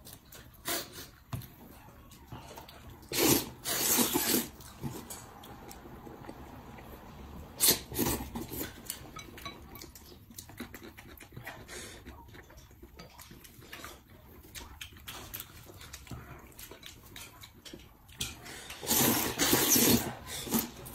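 Noodles being slurped in three loud bouts of a second or so each, with quieter chewing and small mouth clicks between.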